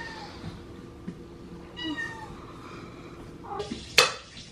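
A cat meowing twice, short falling calls at the start and about two seconds in, then a single sharp click near the end.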